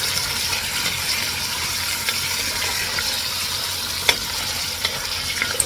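Chopped vegetables sizzling steadily in hot oil with fried onions while being stirred, with a few sharp clicks of the spoon against the pot.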